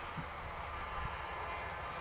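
Steady outdoor background rumble and hiss, with no distinct events.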